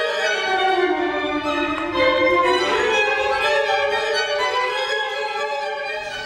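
Violin playing a slow melody of long held notes that slide between pitches.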